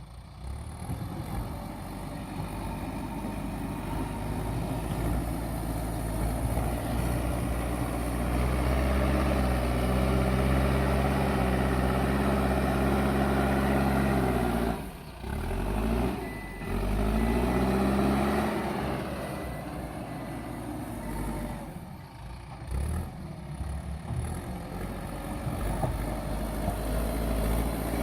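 JCB backhoe loader's diesel engine working under load, its revs climbing and then dropping and picking up again twice around the middle. A faint reversing alarm tone comes in briefly about two-thirds of the way through.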